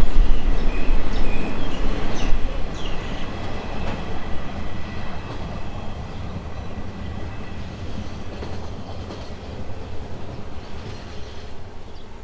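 Freight train of oil tank wagons rolling away over the rails: its rumble and wheel noise fade over the first half and then stay low as the train recedes.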